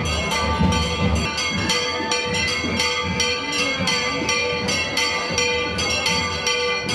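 Church bells pealing fast, struck about three times a second, their tones ringing on between strikes. Low thumps sound under them in the first second.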